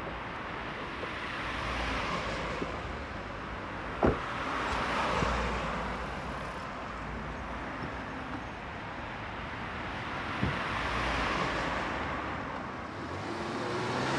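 Street traffic noise with cars passing. A car door shuts with a sharp thump about four seconds in, and a fainter one about ten seconds in. Near the end, a Ford Escape SUV's engine rises in pitch as it pulls away.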